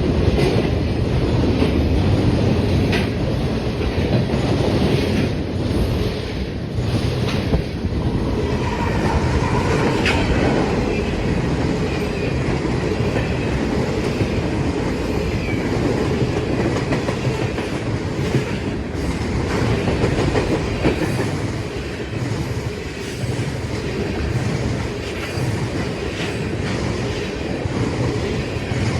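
Canadian National freight train rolling past, its cars clattering rhythmically over the rail joints in a steady rumble, with a faint wheel squeal about ten seconds in.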